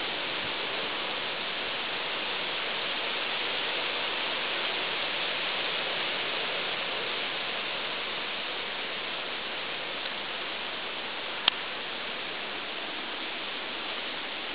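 Steady, even hiss of background noise, with one sharp click about eleven and a half seconds in.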